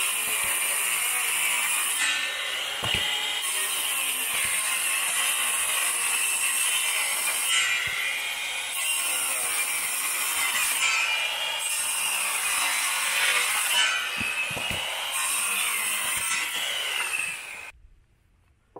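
Woodworking power machine running and cutting wood. The high cutting noise comes and goes in passes every few seconds, with a few knocks, then stops abruptly near the end.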